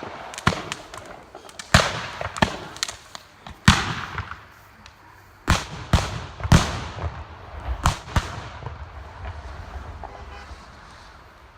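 Fireworks exploding: a rapid, irregular string of loud bangs and crackles that thins out and dies away after about nine seconds.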